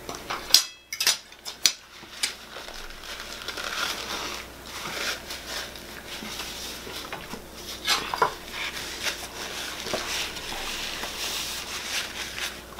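Metal forks clinking and scraping against plates and dishes during a meal, as irregular small clicks and clatter. The sharpest click comes about half a second in.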